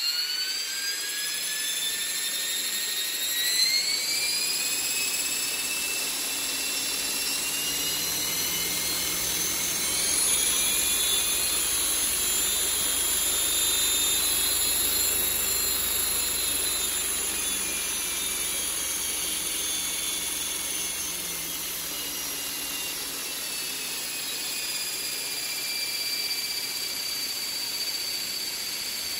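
Radio-controlled helicopter spooling up on the ground: a high whine from its motor, gears and spinning main rotor that rises in pitch over the first few seconds, then holds steady with slight swells.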